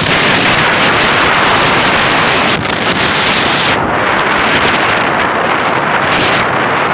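Strong wind blowing across the microphone: a loud, gusty rush.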